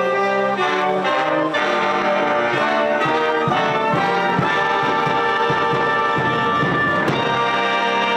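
Instrumental music led by brass, trumpets and trombones: sustained chords, with a busier passage of quickly moving notes in the middle.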